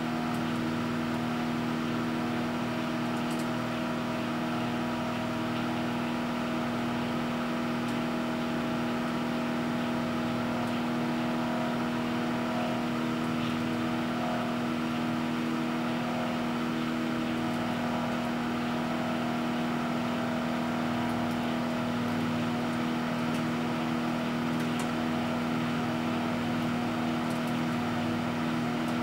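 Microwave oven running: a steady electrical hum with a strong low tone and its overtones, unchanging throughout.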